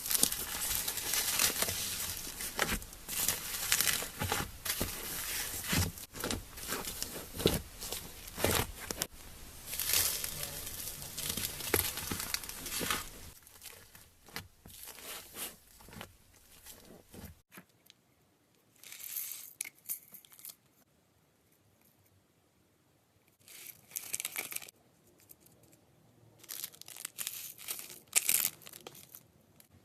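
Slime being squished and stretched by hand, giving a dense run of crackling and squelching for about the first half. After that it turns quieter, with a few short bursts of crackle.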